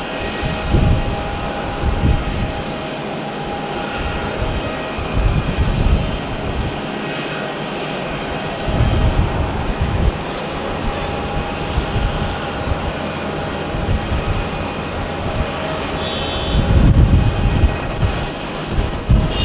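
Jet engines of an Airbus A350-900, its Rolls-Royce Trent XWB turbofans, running steadily with a faint whine, over irregular low rumbling surges.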